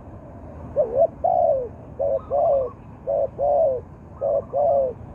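A zebra dove cooing four times, each coo a short note then a longer falling note, repeating about every second. Another dove coos more faintly and higher in the background.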